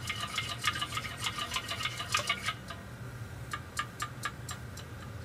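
Spoon stirring sugar into a mug of tea, clinking against the inside about seven or eight times a second for about two and a half seconds, then a handful of slower single clinks before the spoon comes out.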